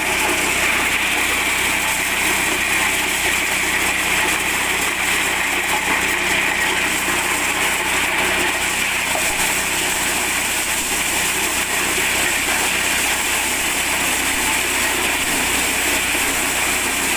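Small 8 hp petrol engine running steadily while it drives a mini corn sheller, the machine's noise unbroken throughout.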